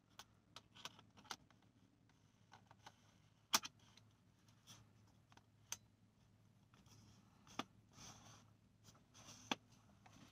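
Faint, scattered clicks and taps of a Canon DSLR body and a 75–300 mm zoom lens being handled and fitted together, the sharpest click about three and a half seconds in.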